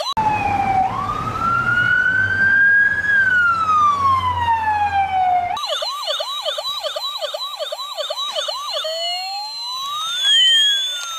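Toy police car's electronic siren playing through its small speaker. A slow wail rises and falls once, then about halfway it switches abruptly to a fast yelp warbling about twice a second. Near the end it changes again to a gliding rising and falling tone.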